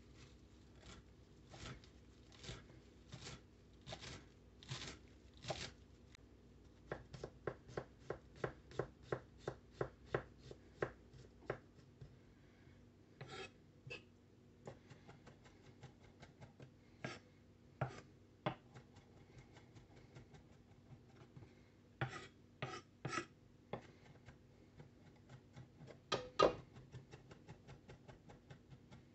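A chef's knife chopping fresh cilantro and mincing garlic on a wooden cutting board, each stroke a sharp tap of the blade on the board. The strokes come spaced at first, then in a quick run of about three to four a second, then scattered, with a few louder knocks near the end.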